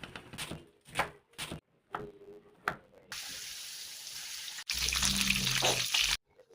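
A few short kitchen knocks, then water running from a tap for about three seconds, getting louder and fuller partway through before it is shut off suddenly.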